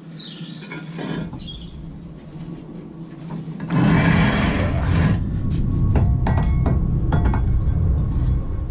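A power tool working wrought iron: a low hum comes in about a second in, then it gets much louder near four seconds and keeps running with a loud low din and a few sharp knocks.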